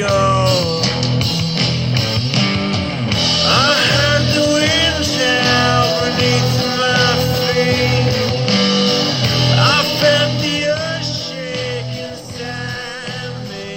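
A song played through a Remax RB-M22 Bluetooth speaker, dropping in level about twelve seconds in.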